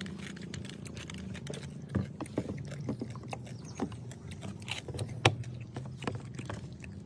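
Eating sounds: scattered crisp clicks and crackles of cooked crab shells being chewed and handled, the sharpest about five seconds in, over a steady low hum.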